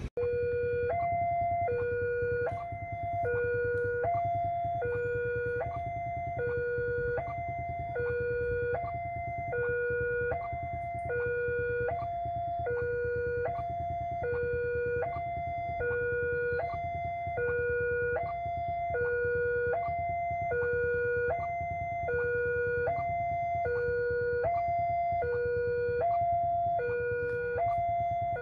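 Railway level-crossing warning alarm sounding its electronic two-tone signal, alternating steadily between a low and a higher note while the barrier is down, warning of an approaching train. A low steady rumble runs underneath.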